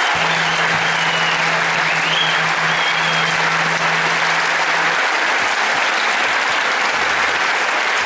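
Concert audience applauding steadily, a dense even clatter of many hands clapping.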